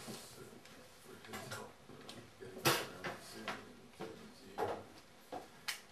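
Several sharp clicks and knocks in a small room, the loudest nearly three seconds in, over faint room noise.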